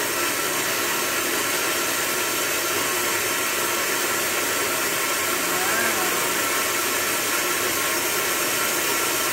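Antique electric coffee grinder running steadily, its motor humming under the even grinding of coffee beans.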